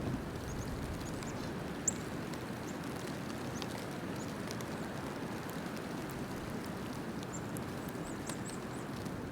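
Steady outdoor background noise with short, high bird chip notes scattered through it, one sharper chip about two seconds in and several close together near the end.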